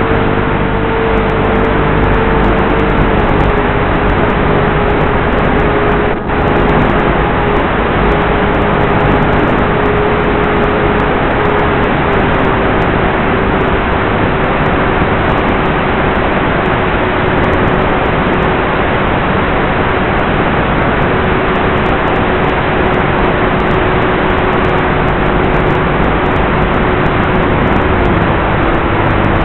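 Electric motor and propeller of a Flite Test Versa Wing RC flying wing heard through its onboard camera in flight: a steady whine that drifts slowly lower in pitch over a loud rush of air noise. The sound dips briefly about six seconds in.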